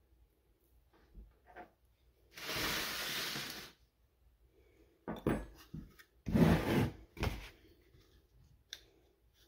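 A metal baking sheet slides and scrapes across a wooden table for about a second and a half. A few seconds later come several knocks and scrapes as a bath bomb mold is picked up and scooped into a bowl of crumbly bath bomb mixture.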